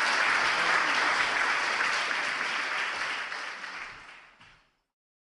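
Audience applauding, the clapping fading away and stopping about four and a half seconds in.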